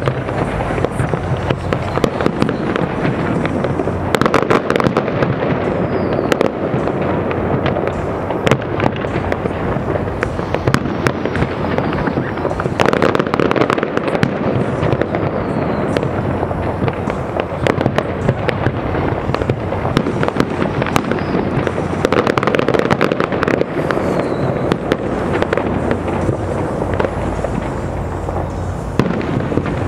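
Aerial fireworks display: a steady run of bangs and crackles from bursting shells, many close together, over a constant wash of noise.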